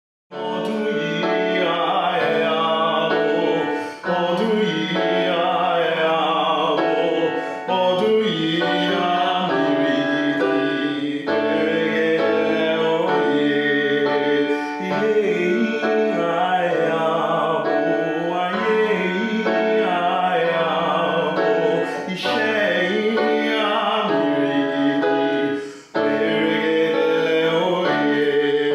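Classical singing with piano accompaniment: a singer with a wide vibrato over sustained piano chords, starting abruptly out of silence, with short breaths between phrases.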